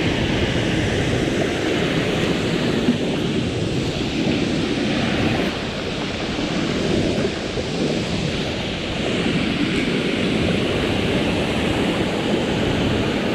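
Rushing stream water pouring over and between rocks in a small cascade, with a waterfall behind: a steady, even rush of water.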